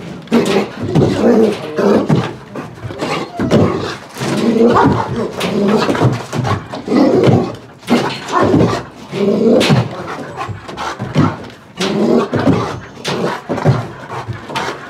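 Young East European Shepherd dogs barking repeatedly, with sharp knocks and rattles as they jump against the wire mesh of their kennel.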